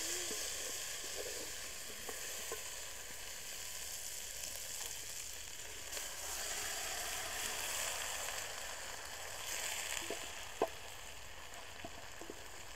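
Boiled potatoes and maize sizzling steadily as they fry with onions in an aluminium pot, with a wooden spoon stirring and scraping and now and then knocking against the pot. There is one sharp knock about ten and a half seconds in.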